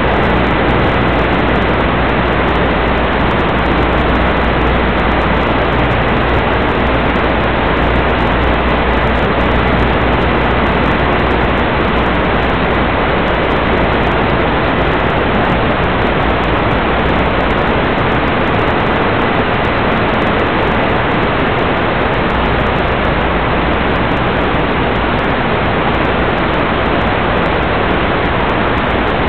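Loud, steady hiss of static from an analog FPV video receiver's audio channel, even and unchanging, with a faint thin whistle running through it for most of the time.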